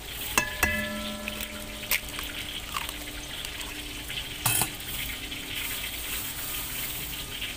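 An egg tapped against the rim of a stainless steel mixing bowl to crack it: two sharp taps about half a second in, after which the metal bowl rings on for a few seconds. A few softer knocks follow, over a steady hiss.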